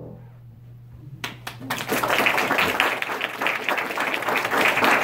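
The last chord of a grand piano fades away, then a few single claps start about a second in and a small audience breaks into steady applause.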